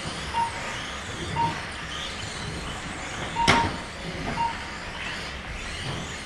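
Four short electronic beeps from the race's lap-counting system, one each time a car crosses the timing line, over the steady whir of small electric Mini-Z RC cars running on the carpet track. A sharp knock about three and a half seconds in.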